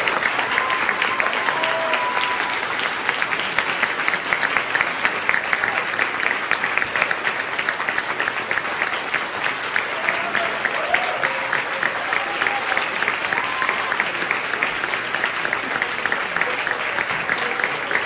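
Audience applauding steadily, with a few voices calling out over the clapping now and then.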